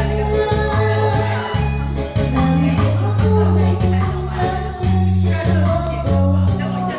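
A woman singing a pop song into a karaoke microphone over a loud backing track with a heavy, stepping bass line.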